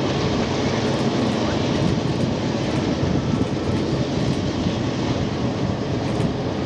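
Diesel freight locomotives running steadily as the train approaches, a continuous engine drone with no breaks.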